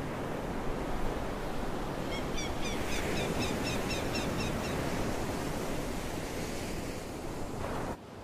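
Sea surf washing and foaming over shoreline rocks, a steady rush of water. A run of quick high chirps sounds over it from about two seconds in, and the surf drops away suddenly near the end.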